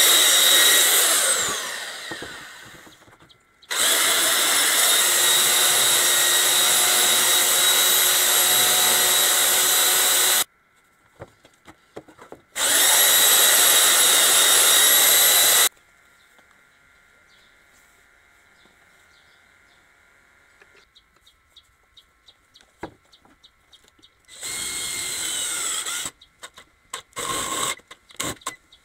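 Handheld electric belt sanders running on dry pine timber in several runs of a few seconds each, the first one winding down as it is switched off. Near the end, a power drill boring into a pine board in short bursts.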